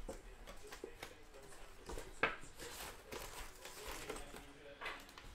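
Foil trading-card packs crinkling and rustling as they are handled and lifted out of a cardboard box, with a sharp tap about two seconds in.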